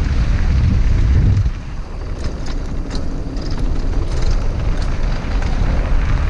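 Wind rushing over the microphone of a mountain bike descending a gravel trail at speed, with tyres crunching over loose dirt and scattered clicks and rattles from the bike, mostly in the middle.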